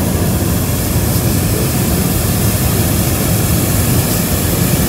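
Hot air balloon's propane burner firing in one long continuous blast: a loud, steady rushing noise over a low rumble.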